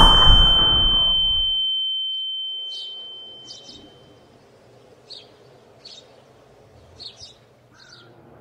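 A loud crash of noise fades out over the first two seconds, leaving a high steady ringing tone that dies away about four seconds in. Then faint bird chirps come every second or so, some in pairs, over a low background hum.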